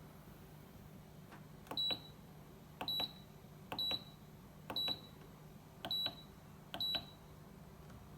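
Dishwasher control-panel buttons being pressed, each press a light click answered by a short high beep, six times at about one a second, as the wash programs are stepped through.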